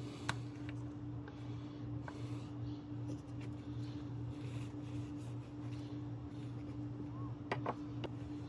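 Oil extractor pump running with a steady hum, sucking the old engine oil out, with a few light clicks and taps over it.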